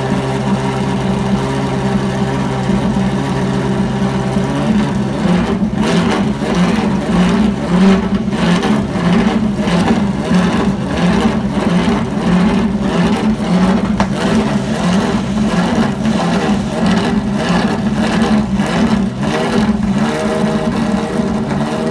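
Ferrari 458 Italia GT3's V8 engine idling while it warms up. The idle is steady and even at first, then turns rougher and pulsing about five seconds in.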